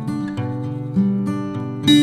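Background music: a guitar melody, single plucked notes changing pitch every half second or so, with fresh notes struck about a second in and again near the end.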